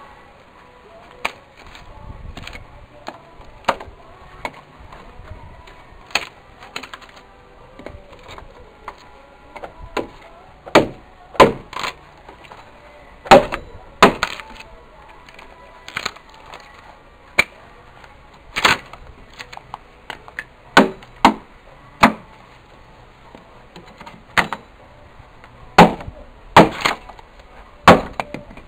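Hand axe chopping into a log as it is hewn, single sharp wooden cracks at irregular intervals, one every second or two, with wood chips splitting off. The blows get louder about ten seconds in.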